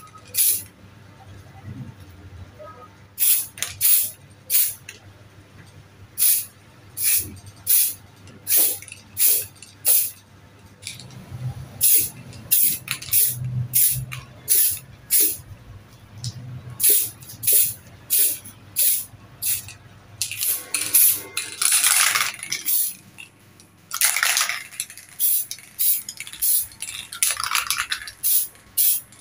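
Pylox aerosol spray paint can being shaken, its mixing ball rattling about twice a second. In the last third, a few longer hissing sprays of paint come between the rattles.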